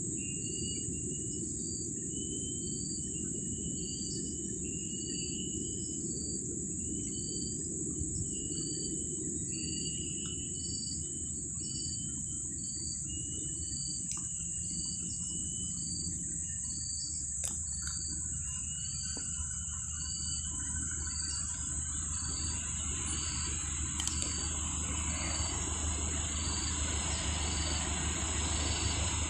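Steady high insect drone with a short chirp repeating about once a second, over a low rumble. In the last ten seconds a low hum slowly grows louder as a train approaches.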